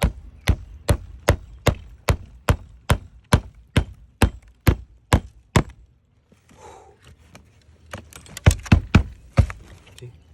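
Hammer driving nails into wood roof shakes: a long run of even blows, about two and a half a second. After a pause of a couple of seconds comes a second, faster run of about half a dozen blows.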